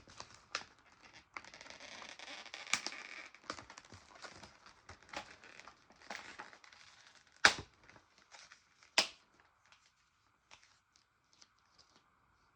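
Plastic shrink-wrap being torn and crinkled off a VHS tape case, with many small clicks of handling. Past the middle come two loud, sharp clicks about a second and a half apart, then the sound dies down to a few faint ticks.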